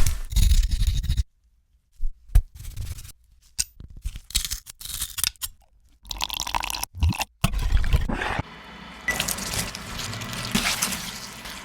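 A quick succession of short crunching and scraping food sounds, cut off abruptly between clips with brief silent gaps.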